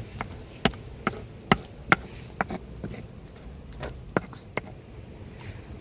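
About a dozen sharp knocks at an irregular pace, the loudest two in the first half.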